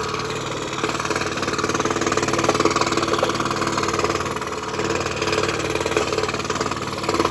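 Scroll saw running steadily, its fine 2/0 Flying Dutchman blade cutting 7 mm five-ply Finland birch plywood in one continuous curving cut.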